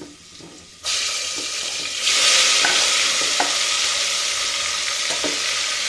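Hot mustard oil in an aluminium pressure cooker starts sizzling suddenly about a second in, as chopped fire-roasted tomatoes and onions are scraped off a wooden board into it. The sizzle grows louder a second later and keeps going, with a few light taps in it.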